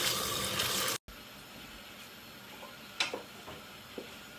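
Kitchen tap running onto hawthorn berries in a wicker basket in a steel sink, cut off suddenly about a second in. Then a wooden spoon stirring hawthorns in a large metal jam pan, with a sharp knock about three seconds in and a lighter one a second later.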